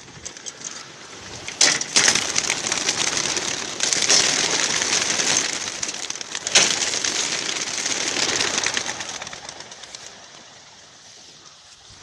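A large flock of young racing pigeons taking off together, a dense rush of many wings flapping and clapping. It swells about a second and a half in, with sharp louder claps then and again about halfway, and dies away over the last few seconds as the birds climb away.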